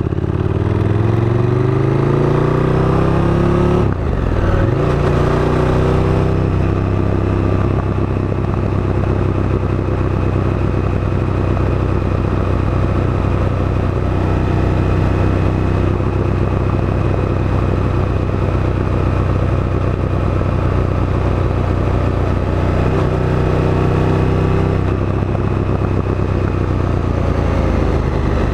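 KTM 1290 Super Duke GT's V-twin engine accelerating: revs climb for about four seconds, drop briefly at a gear change, climb again, then hold steady. The revs rise once more briefly near the end.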